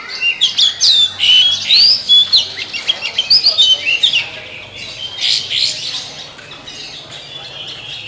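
Oriental magpie-robin singing: a fast run of clear whistled notes and sweeping up-and-down glides mixed with harsher notes, busiest in the first half, then thinning to shorter phrases.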